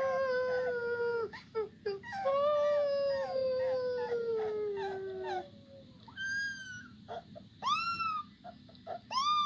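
A young boy and a rottweiler puppy howling. There are two long, drawn-out howls, the second slowly falling in pitch. Near the end come three short, higher howls that each rise and fall.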